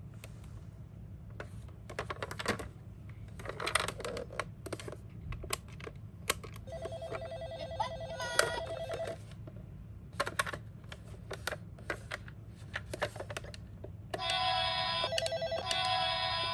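Electronic toy ambulance siren sounding in short spells: a steady electronic tone for about two seconds midway, then a louder two-pitch siren from near the end. Throughout there is a scatter of small plastic clicks and clatter from the toy cars being handled.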